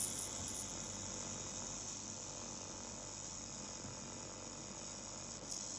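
Steady hiss from a 2000 W handheld laser welding machine at work on mild steel, with a short click about five and a half seconds in.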